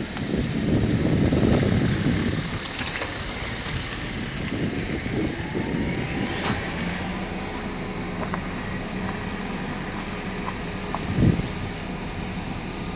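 Road traffic passing, with a low rumble of wind on the microphone in the first two seconds. Midway a whine rises steeply in pitch over about three seconds, and a brief thump comes near the end.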